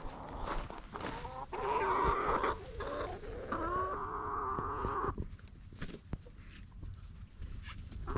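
Chickens clucking and calling close by, with one long held call about three and a half seconds in; the calls die down after about five seconds.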